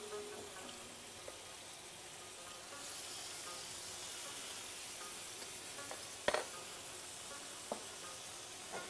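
Thin strips of beef tenderloin sizzling in hot oil in a frying pan. The sizzle grows louder about three seconds in. There is a sharp click a little past six seconds and a lighter one near the end.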